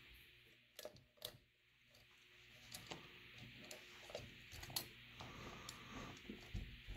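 Faint, scattered small clicks and taps of plastic parts and wires of an electric kettle's base being handled, with two sharper clicks about a second in.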